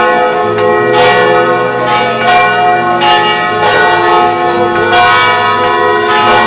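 Several church bells struck again and again, their steady tones ringing on and overlapping.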